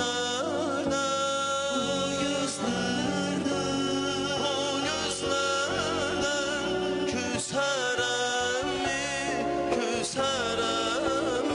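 Male vocal group singing into microphones, a wavering, ornamented melody with vibrato over backing music.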